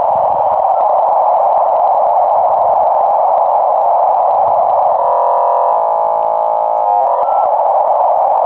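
Dial-up modem handshake: a steady hiss of scrambled data noise, broken about five seconds in by a couple of seconds of many stacked steady tones, after which the hiss resumes.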